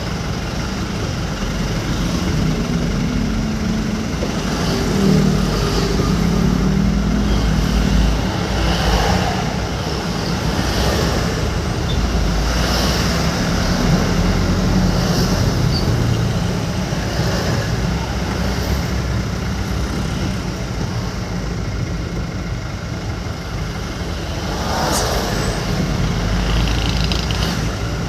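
Motor vehicle on the road: steady engine and road noise with a low rumble, and a swish every couple of seconds.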